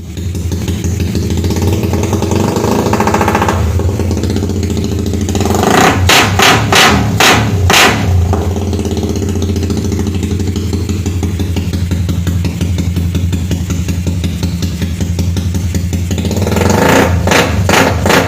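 Suzuki Raider R150 motorcycle's single-cylinder engine idling. It is revved up about three seconds in, then given several quick sharp throttle blips, with another burst of blips near the end.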